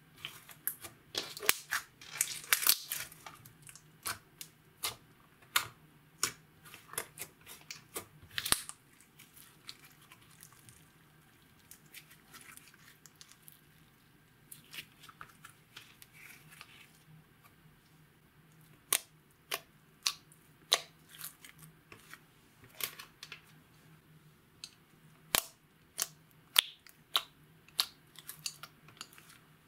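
Slime being pressed, folded and stretched by hand: a run of sharp, sticky clicks and pops, thinning out for several seconds in the middle before picking up again.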